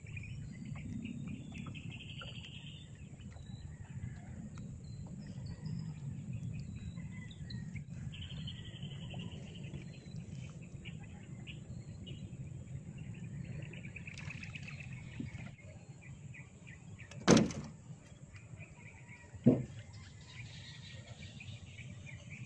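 Gill net being hauled by hand over the side of a wooden boat, with a steady low rumble and bird chirps in the background. Near the end come two loud thuds about two seconds apart as tilapia are dropped into the boat's hold.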